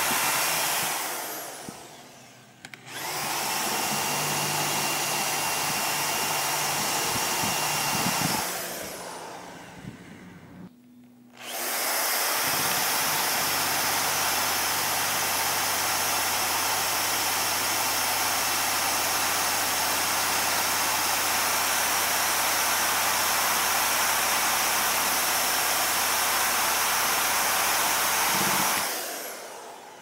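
Power tool spinning a rubber decal-eraser wheel against a school bus's metal side, stripping off decals. It runs steadily and stops twice, winding down each time with a falling whine: about a second in and near nine seconds. It winds down again near the end.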